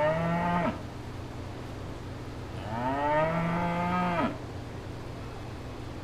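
Cattle mooing: a long moo that ends less than a second in, then a second long moo starting about two and a half seconds in and lasting nearly two seconds. Each call bends up in pitch and then drops away at its end, over a steady low background hum.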